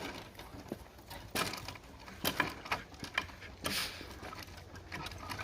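A few irregular footsteps or knocks on woodland ground, some sharper, some more scuffing, spaced unevenly.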